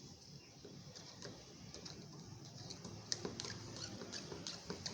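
A mixing stick stirring liquid in a cup, tapping and scraping lightly against the side in many small, irregular ticks that grow busier about halfway through.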